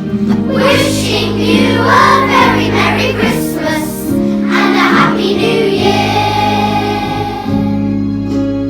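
Children's choir singing a song with instrumental accompaniment; the voices stop about six seconds in and the accompaniment plays on alone.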